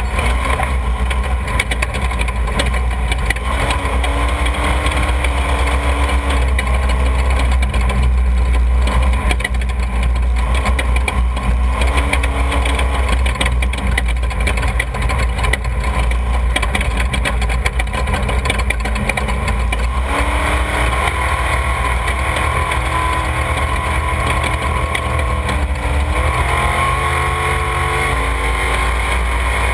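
Off-road desert race vehicle engines idling and revving, their pitch rising and falling several times over a heavy, steady low rumble.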